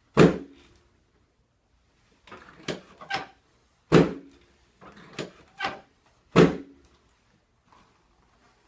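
Handheld chiropractic adjusting instrument firing, a series of sharp clicks as it strikes the patient's back. Three loud clicks with a dull thud under them come at the start, about four seconds in and about six and a half seconds in, with lighter clicks between them.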